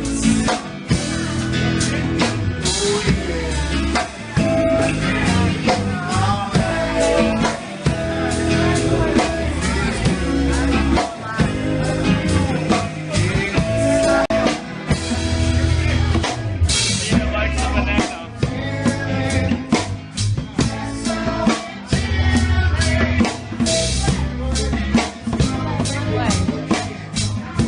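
A band playing a song live, led by a drum kit with a steady bass-drum beat.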